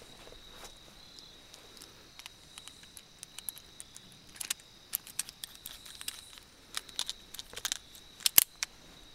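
Small metallic clicks and rattles of a Smith & Wesson 638 revolver being handled with its cylinder open, growing busier after a few seconds, with a sharper double click near the end.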